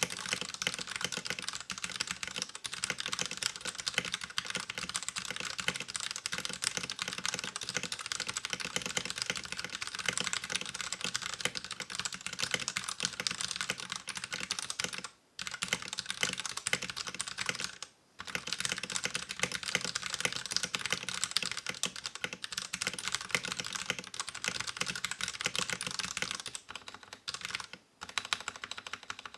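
Fast, continuous typing on an LTC Nimbleback 65% mechanical keyboard, a plastic case with a metal plate, fitted with stock 60 g Akko Purple linear switches and thin ABS keycaps: a dense stream of keystroke clacks. It pauses briefly about halfway through, again a few seconds later, and once more near the end.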